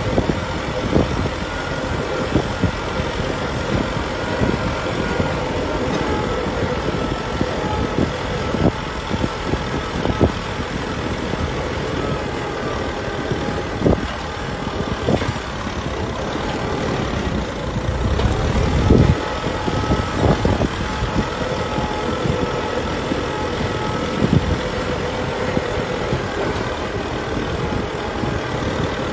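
Kubota M6040 tractor's four-cylinder diesel engine running steadily under load while working dry soil, with scattered short knocks from the ground work.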